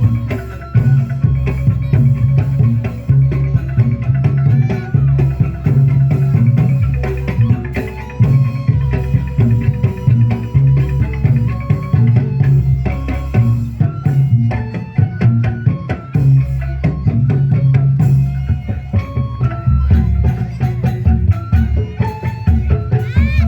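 Live band music, an instrumental passage with drums and a pulsing bass line on a steady beat.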